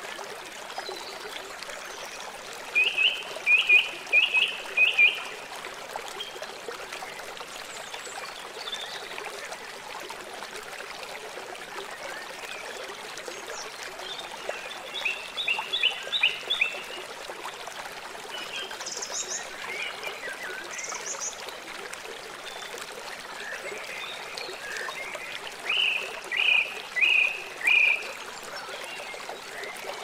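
Shallow river flowing with a steady rushing sound, and birds singing over it. A short loud phrase of four or five notes comes three times: about three seconds in, around the middle, and near the end. A few thin high calls fall between them.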